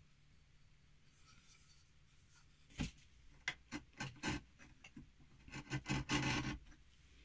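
Bench chisel paring small shavings off the corner of a beech plane body: a few short scraping cuts starting nearly three seconds in, then a quicker run of strokes about six seconds in.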